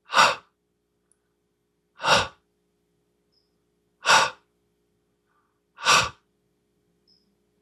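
A man voicing the English 'h' sound: four short, breathy puffs of air about two seconds apart, just breath with no voice.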